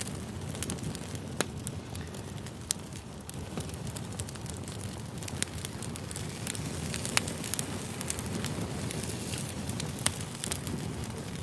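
Wood fire burning, with irregular sharp crackles and pops over a steady low rush of flame.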